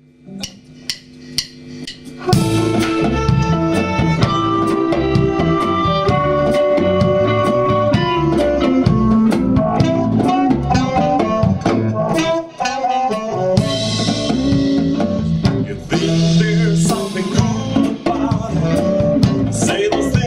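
Live blues band starting a number: about four evenly spaced sharp clicks count it in, then about two seconds in drums, bass, guitar and a blues harmonica come in together, the harmonica playing the lead line.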